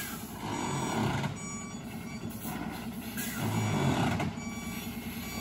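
Heavily loaded Ashok Leyland truck backing up after failing to take a steep hairpin bend in one go: its reverse alarm beeps over and over above the diesel engine, which rises and falls as the driver works it.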